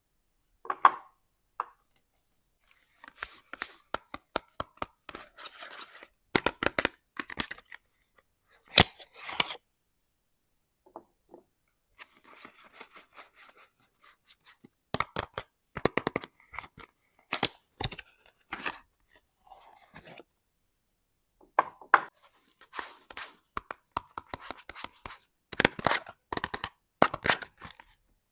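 Soap bars being unwrapped close to the microphone: irregular bursts of packaging tearing and crinkling, mixed with sharp clicks and taps, broken by short silent pauses.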